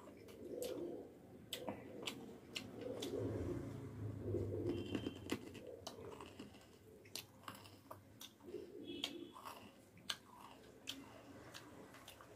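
A person chewing a mouthful of rice and masaura (dried lentil nugget) curry close to the microphone, with many sharp, wet mouth clicks and smacks.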